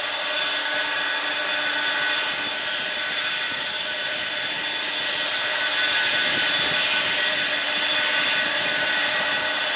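Boeing 747-400's four jet engines at low taxi power: a steady whine of several high tones over a rushing hiss, getting slightly louder about six seconds in.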